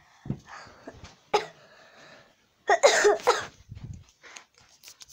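A person coughing: a short cough a little over a second in, then a louder run of coughs around three seconds in.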